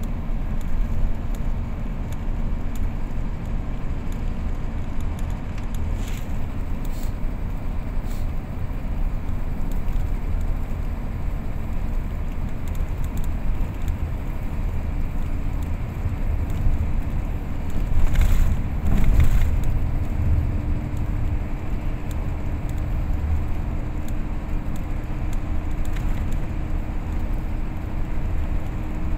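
Steady low road and engine rumble of a moving vehicle, heard from inside it as it drives along. Two louder surges come close together about two-thirds of the way through.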